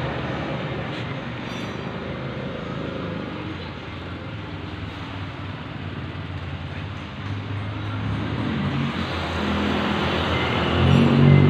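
Freshly rebuilt Suzuki Satria FU 150's single-cylinder four-stroke engine running steadily and smoothly, growing louder over the last few seconds.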